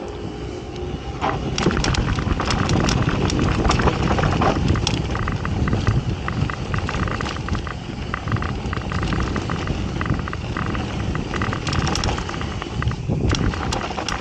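Mountain bike descending a dry dirt trail: a steady rumble of knobby tyres rolling on loose dirt and gravel, with frequent clicks and knocks as the bike rattles over bumps.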